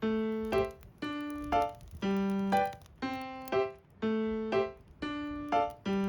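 Background music: a gentle keyboard or electric-piano melody in a steady, repeating pattern of notes.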